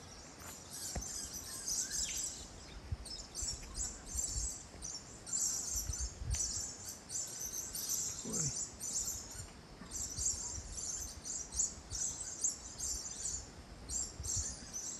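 A flock of lorikeets (burung nuri) calling from a flowering tree: a dense, unbroken stream of high-pitched chirps and twitters.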